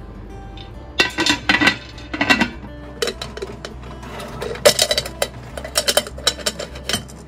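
Metal pressure cooker lid being fitted and twisted shut. About a second in there is a cluster of scraping, ringing clanks, followed by many sharp metal-on-metal clicks and clinks.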